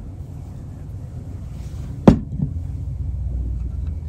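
A single sharp tap about two seconds in, with a fainter one just after, from the small metal parts of a disassembled floppy drive being handled. A steady low hum runs underneath.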